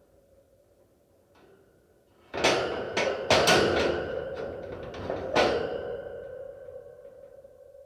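Metal dungeon cage door clanking: a rattle of several sharp metallic impacts about two seconds in, then one more loud clank a few seconds later that rings and slowly fades, over a low steady ambience drone.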